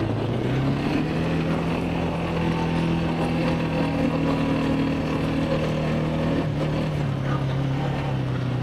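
Quad bike engine running while riding over the dunes. Its pitch rises just after the start, holds steady for several seconds, then drops back about six and a half seconds in.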